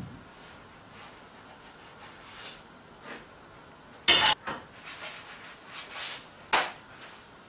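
Frying pan clanking down on a gas hob's grate and a ladle knocking against the pan, with sharp metal clanks about four seconds in and twice more near the end, and a brief hiss as pancake batter goes into the hot pan.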